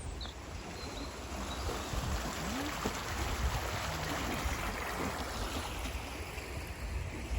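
Rain-swollen river rushing, growing louder through the middle and easing off near the end.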